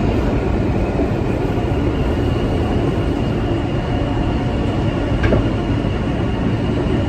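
New York City subway train running through a tunnel, heard from inside the car: a steady, loud rolling noise of wheels on rail with a thin, steady high whine over it.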